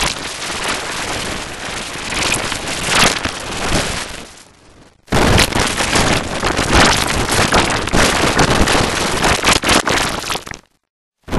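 Harsh, heavily distorted noise with no clear tone. It fades down around four and a half seconds in, breaks off briefly, then cuts back in suddenly louder and stops abruptly near the end.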